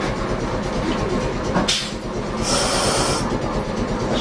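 Nagasaki Electric Tramway streetcar moving slowly, a steady low rumble of the car on its rails heard from inside, with a short hiss about one and a half seconds in and a longer high-pitched hiss just under a second later.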